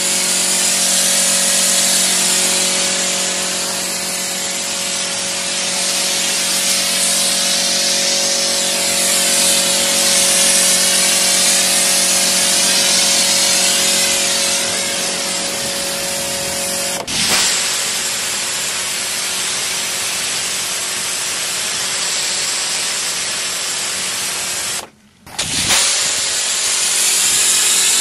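Electric pressure washer running, its pump motor humming steadily under the loud hiss of the water jet spraying onto the car's body. Near the end the spray and hum cut out for a moment, then start again.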